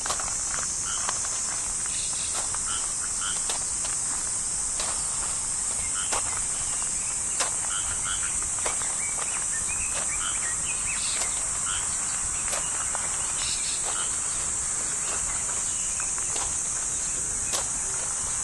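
A steady, high-pitched insect drone runs throughout, with scattered short chirps and occasional light ticks over it.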